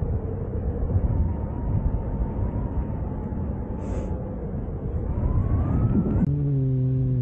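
Airflow rushing over the camera microphone during paraglider flight, an even rushing noise with a faint steady tone in it that rises in pitch near the end. About six seconds in the rush cuts off sharply and a steady low hum with overtones takes over.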